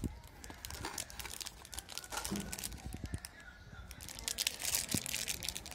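Plastic wrappers of Chupa Chups Sour Belt candy packets crinkling as they are handled, with a dense run of sharp crackles about four to five seconds in.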